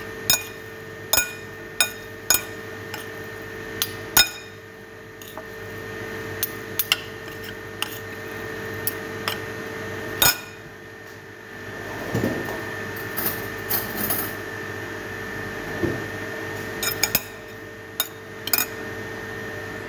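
A metal spoon clinking and knocking against a cooking pot and a plate as noodles are served out, in irregular sharp clinks about once a second. A steady hum runs underneath.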